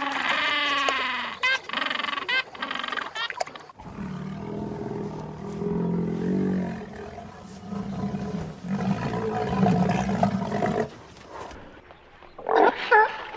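Animal calls: a high, repeated pitched call in the first few seconds, then a long low call lasting several seconds, then a quick run of short repeated calls near the end.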